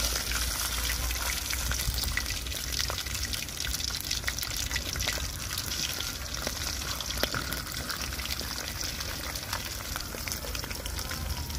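Tilapia frying in hot cooking oil: a steady sizzle dotted with many small crackles and pops.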